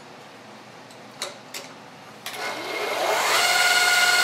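Vertical milling machine's spindle motor starting up, with a couple of clicks at first, then a whine that rises in pitch for about a second and settles into a loud steady whine at running speed.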